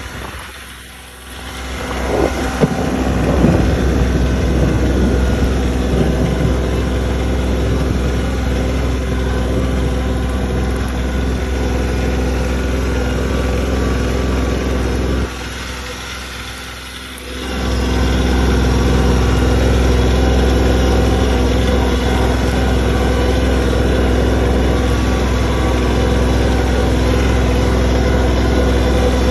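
Compact tractor's engine running steadily as it drives along, quieter for about two seconds halfway through.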